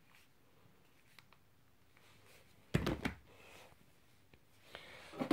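Near silence with a few faint ticks, then about two and a half seconds in one brief, sudden knock of a device being handled, with faint handling noise near the end.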